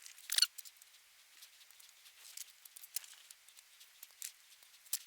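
Scattered small clicks and taps, with a brief louder scrape about half a second in: small parts and plastic housing being handled while the desoldering tool is reassembled.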